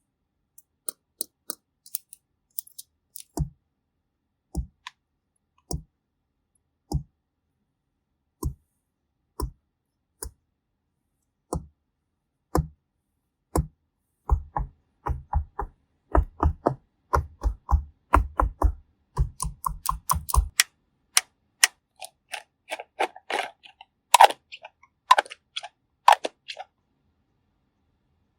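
Sharp taps and clicks of makeup tools being worked on a bottle gourd, about one a second at first. About halfway through they turn into a quick run of fuller taps, then lighter, crisper clicks near the end.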